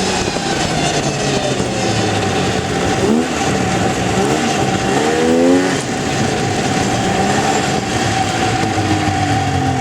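Snowmobile engine running under way with a steady high whine, revving up and easing off about three seconds in and again about five seconds in.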